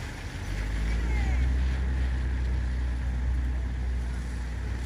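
Low engine rumble of a passing motor vehicle, swelling about half a second in and easing off near the end, over steady outdoor traffic noise with a few faint bird chirps.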